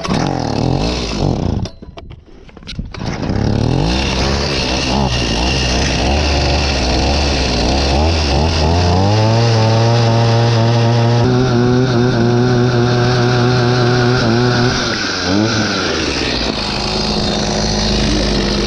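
Gas-powered ice auger's two-stroke engine running. It revs up about nine seconds in and holds at high speed, boring a hole through the lake ice, then drops back to a lower steady speed near the end.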